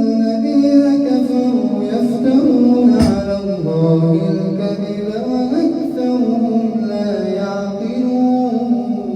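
A man chanting Quran recitation in melodic tajweed style, drawing out long held notes that step slowly from pitch to pitch.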